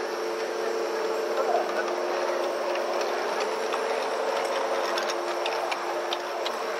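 Large-scale model diesel locomotive running past with its wagons, a steady electric motor hum, with a run of light clicks of wheels over the track in the second half.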